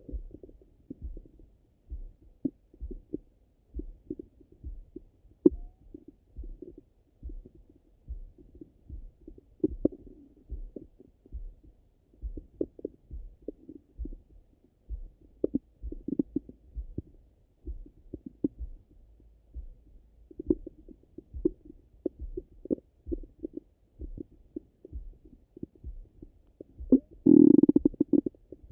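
Stomach and bowel sounds heard through a Littmann stethoscope on the belly after a meal: soft gurgles over a steady, pulse-like thumping. One loud rumble of about a second comes near the end.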